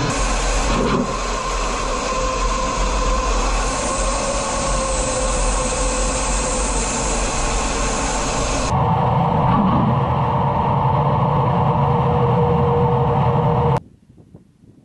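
Steady jet engine and airflow noise inside the cockpit of a Su-25 ground-attack jet in flight, with a steady whine running through it. About nine seconds in it turns into a deeper rumble, then cuts off suddenly near the end, leaving only faint wind.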